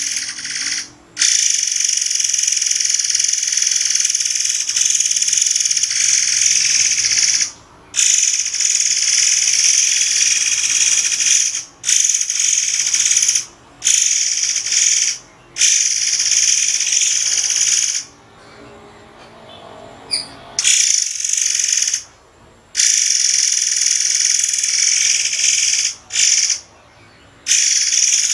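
Murai air songbird singing long, high, rapid trills ('tembakan'), each stretch lasting a few seconds and broken by short pauses, with a longer break near the middle.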